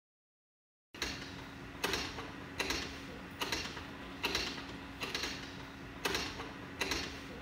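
Honda Activa scooter being kick-started by hand over and over, about one stroke a second, each stroke a sharp mechanical clack that fades out; the engine does not catch. Starts about a second in.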